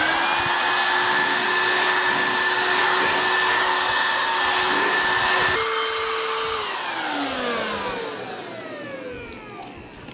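HOLIFE 22.2-volt cordless stick vacuum running: a steady motor whine over the hiss of suction as it spins at full speed. About five and a half seconds in the pitch shifts. A second later the vacuum is switched off and the whine falls away as the motor winds down.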